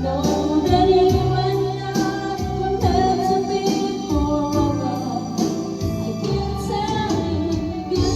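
A song playing, with singing over a steady beat and bass line.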